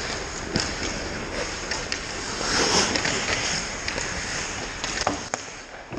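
Ice hockey play close to the goal: skate blades carving and scraping the ice, with a louder scraping hiss about halfway through, and several sharp clacks of sticks and puck.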